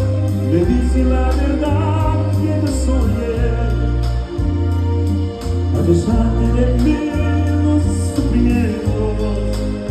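Live band playing a Spanish-language ballad, with a voice singing over deep sustained bass notes and a steady beat.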